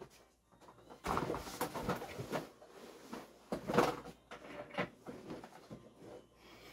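Knocks and rustling of a person settling at a desk and leaning on it: a cluster of rustles and knocks about a second in, and the loudest knock just before the middle.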